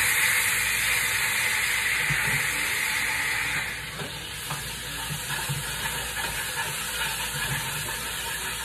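Hot oil sizzling in a pan with onion and a green seasoning paste just added, loud for the first three or four seconds and then settling to a lower, steady sizzle.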